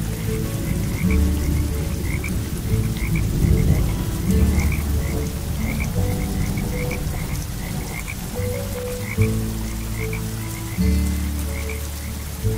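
Frogs croaking in a chorus of many short, repeated calls over steady rain, with low sustained tones held underneath.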